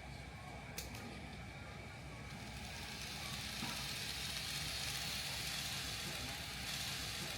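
Kato N-scale Shinkansen model train running on layout track: a steady rumble of motor and wheels, with a hiss that swells from about two and a half seconds in as the train comes closer or speeds up. One sharp click just under a second in.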